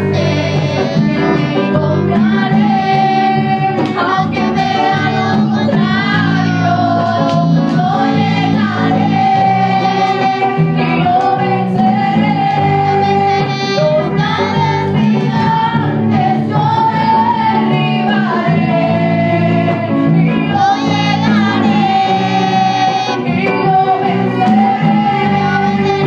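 A woman singing a Spanish-language Christian praise song into a microphone over musical accompaniment, holding long, wavering notes.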